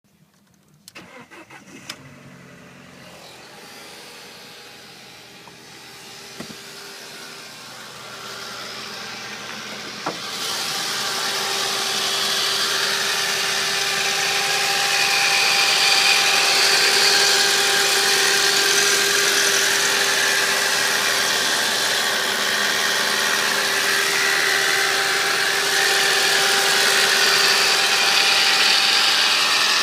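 Audi A4 B7 1.8T turbocharged four-cylinder being started from cold and running, with the strange noise it makes on cold starts. About ten seconds in, a click is followed by a loud hissing whir that cuts in suddenly, builds over the next few seconds and then holds steady over the engine.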